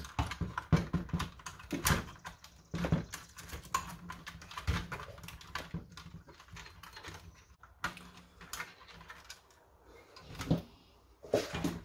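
Irregular clicks, taps and knocks of hard plastic parts being handled and fitted inside the opened housing of a Nerf Vulcan blaster, the loudest in the first few seconds and again near the end.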